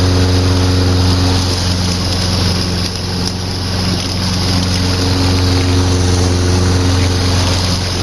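Briggs & Stratton single-cylinder engine of a walk-behind lawn mower running steadily, its crankshaft newly straightened after the blade hit a metal stake. It dips a little about three seconds in, then carries on.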